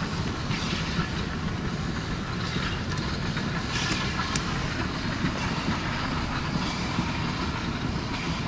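Steam tank locomotive hauling a train of wooden coaches past at speed: a steady running rumble of the engine and wheels, with hissing steam in the first half and a few sharp clicks near the middle.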